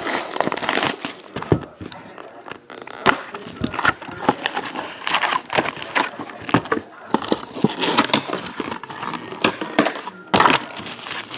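A hockey card hobby box being torn open by hand: irregular crinkling and crackling of plastic wrap and cardboard tearing, with foil card packs rustling as they are pulled out and stacked.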